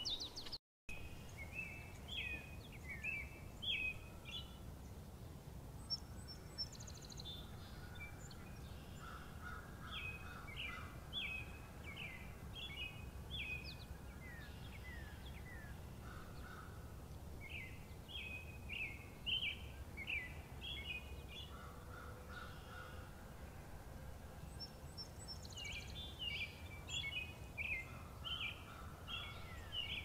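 Songbirds singing in a spring forest: bouts of quick, repeated high notes every several seconds, with a few lower notes between, over a steady low background rumble.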